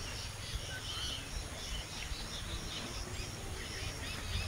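Outdoor ambience of scattered bird chirps and insects over a low steady rumble, with no loud event.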